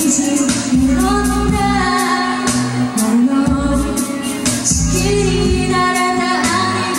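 A woman singing a pop song live into a handheld microphone over a backing track with bass and a steady beat.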